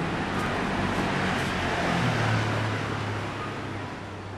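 Street traffic noise with a low, steady engine hum underneath, slowly fading out over the second half.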